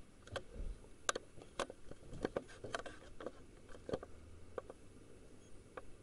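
Irregular light clicks and knocks, about nine spread over six seconds, over a faint low hum.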